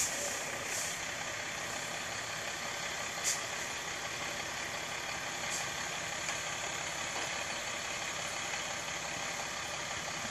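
Utility bucket trucks idling steadily, with a few short high hisses.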